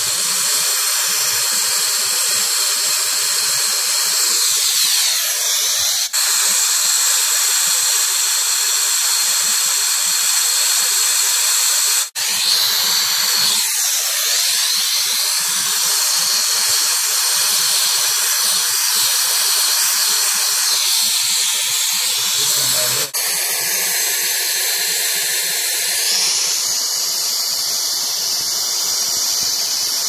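Brazing torch flame hissing steadily against copper tubing at a filter drier, with nitrogen purging through the lines. The hiss drops out briefly about 6, 12 and 23 seconds in.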